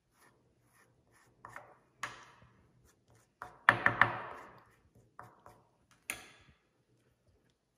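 A metal spoon tapping and scraping as flour-and-water paste is spread on a spring roll wrapper over a wooden chopping board: scattered short taps and clicks. The loudest is a quick cluster of three about three and a half seconds in, followed by a brief rubbing scrape.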